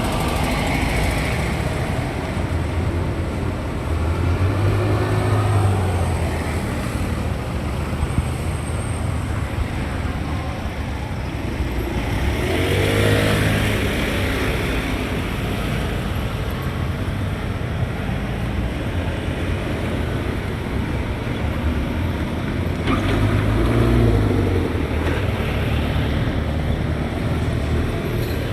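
City street traffic: a steady rumble of road noise with motor vehicles passing close by, three of them louder, at about 5, 13 and 24 seconds in.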